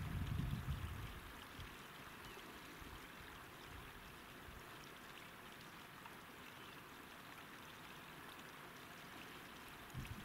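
Wind buffeting the camera microphone as low rumbling gusts in the first second and again briefly near the end, over a steady rushing hiss of wind.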